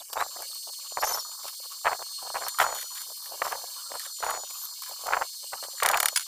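Stick (arc) welding: a steel-pipe bumper frame being tack-welded, the arc crackling in a string of short bursts about once a second over a steady high whine.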